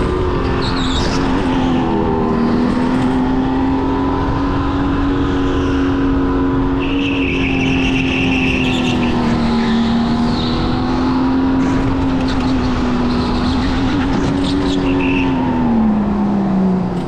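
Go-kart running at speed with a steady motor note that wavers slightly with throttle. The note drops in pitch near the end as the kart slows. There is a brief high squeal about seven seconds in.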